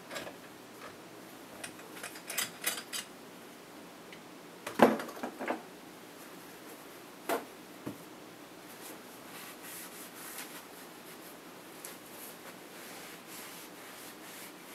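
Stainless steel pot and metal clamp ring clinking and knocking as they are handled and set down on a counter, with the loudest knock about five seconds in. After that, paper towel rustles softly under a gloved hand.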